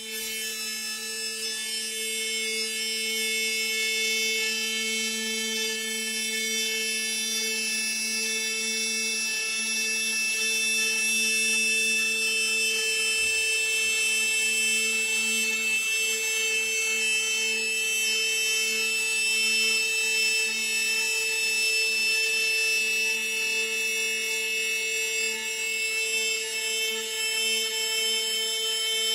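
CNC router spindle cutting a groove into a wooden serving board: a steady whine made of several held tones over a hiss, unbroken as the gantry moves the bit along.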